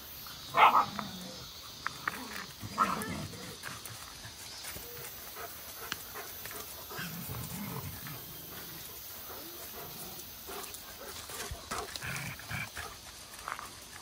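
Dogs in a group giving two loud short vocalisations, about half a second in and again near three seconds, then lighter scattered dog noises. A faint steady high buzz runs underneath, as of cicadas.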